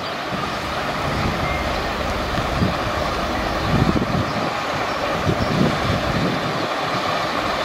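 DB Class V 65 diesel locomotive running as it hauls a train of vintage coaches slowly away, with a steady engine sound throughout.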